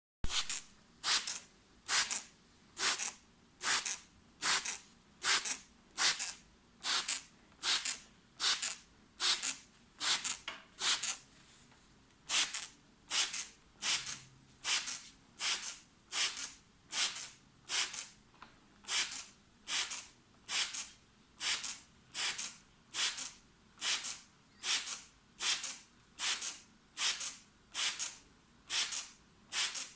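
Hand-pumped trigger spray bottle squirting water mist in a steady rhythm of about one squirt a second, with a short pause about twelve seconds in.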